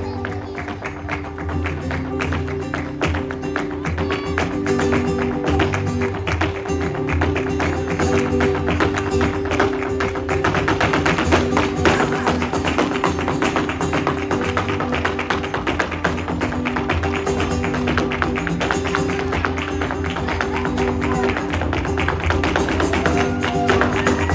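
Live flamenco alegrías: a flamenco guitar strummed and picked, over a dense run of sharp hand claps (palmas) and the dancer's heel-and-toe footwork taps.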